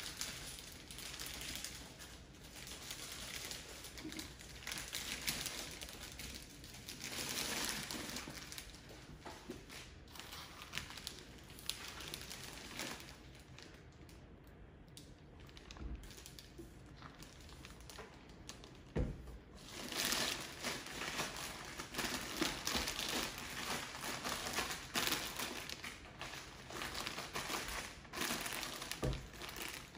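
Clear plastic wrap crinkling and rustling as an electronics unit is slid out of its plastic bag by hand. It is quieter for a few seconds in the middle and picks up again, with a few dull knocks.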